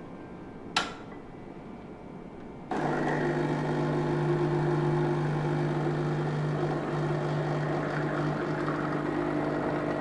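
A glass cup clinks once as it is set down, then about three seconds in the Planit espresso machine's pump switches on with a steady buzzing hum as the espresso shot pulls.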